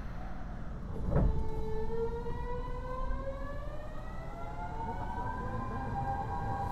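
Kyoto Subway Series 50 car's Mitsubishi GTO-VVVF traction inverter as the train starts to accelerate: a thump about a second in, then a whine of several parallel tones rising slowly in pitch, over a steady low rumble.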